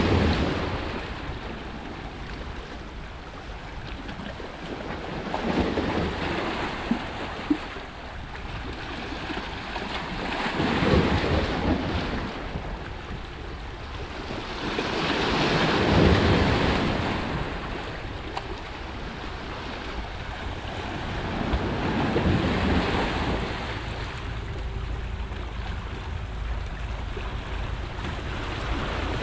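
Sea waves washing in over shoreline rocks, the surf swelling and ebbing about every five to six seconds, with a steady low wind rumble on the microphone.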